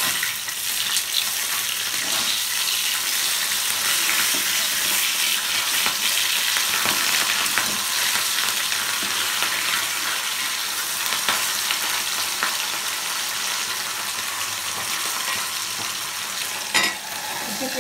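Pabda fish frying in hot mustard oil in a steel kadai: a steady sizzle, with small scrapes and taps of a metal spatula as the fish are turned over. One sharp metallic clink comes near the end.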